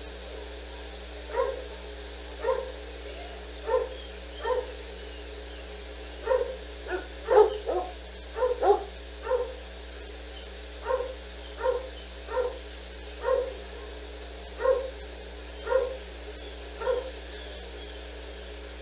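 A dog barking repeatedly, short single barks about once a second, with a quicker cluster of barks about halfway through.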